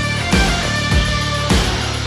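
Background music: an upbeat rock track with guitar and a steady beat.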